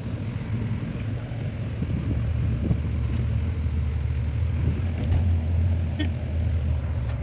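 A semi-sleeper coach bus on the move, heard from inside the passenger cabin: a steady low rumble of engine and road noise, with a few faint clicks near the end.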